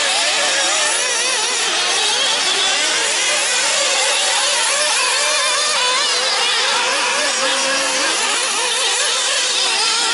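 Several nitro RC buggies' small glow-fuel engines running at once, a high-pitched buzzing whose many overlapping pitches keep rising and falling as the cars accelerate and slow through the corners.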